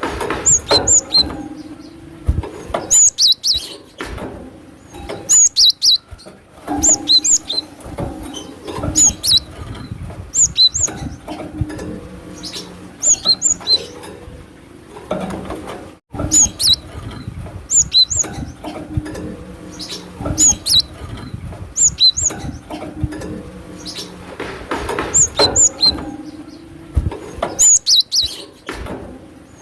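Cinereous tit (glatik batu) calling: clusters of sharp, high chirps repeated about every two seconds, a lure call for the species. The sound cuts out for an instant about halfway through.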